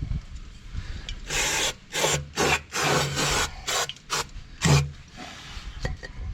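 Hand file rasping over metal in a series of short strokes, about eight between one and five seconds in, taking burrs and protrusions off the tractor's differential parts before assembly.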